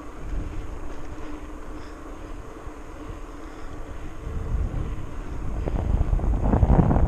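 Wind buffeting the microphone of a camera carried along on a ride, a steady low rush that grows louder and gustier from about four seconds in as the speed picks up.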